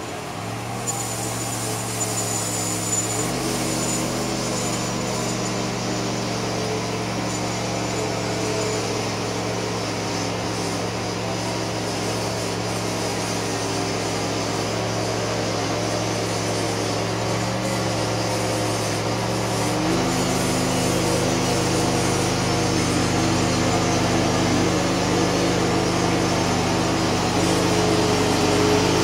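Homemade bandsaw mill running and cutting lengthwise through a large spruce log: a steady engine note under the hiss of the blade in the wood. The engine note shifts a few seconds in and again about two-thirds through, and the sound grows louder as the saw head travels closer.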